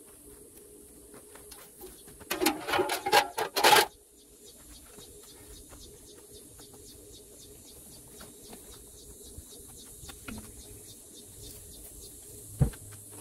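A burst of loud clattering metal knocks lasting about a second and a half, then a quiet stretch with a faint steady high hiss. A single heavy thump near the end as a large truck tyre on an aluminium rim is handled at the hub.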